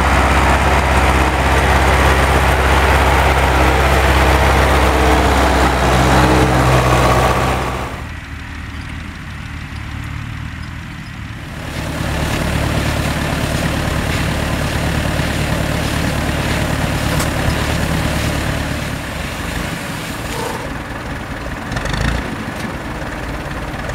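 Farm tractor diesel engines running steadily, first a tractor pulling a loaded hay trailer. The sound drops off suddenly about eight seconds in, and tractor engines run again from about twelve seconds, with a sharp knock near the end.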